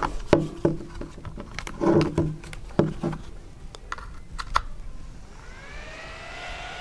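Clicks and knocks of a plastic boot dryer, its USB cable and a power bank being handled and plugged together. About five seconds in, the boot dryer's small USB-powered fan starts up with a whine that rises in pitch and then levels off.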